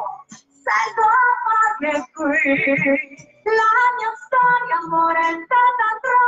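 A woman singing into a handheld microphone: several sung phrases with short breaks between them, and a held note with vibrato about two and a half seconds in.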